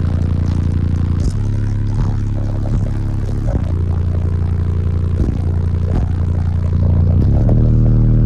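Two Team EM Audio 18-inch subwoofers in a ported box tuned to 29 Hz playing bass-heavy music at high volume inside a hatchback. Deep held bass notes change every second or so and get louder about seven seconds in.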